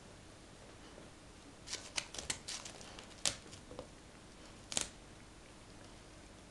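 Golden retriever chewing food, with a quick run of sharp crunches about two to three seconds in and one more crunch near the five-second mark.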